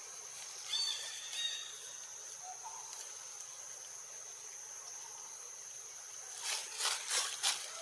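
Steady high-pitched insect drone. Two short chirps come about a second in, and a quick run of four or five rustling scrapes comes near the end.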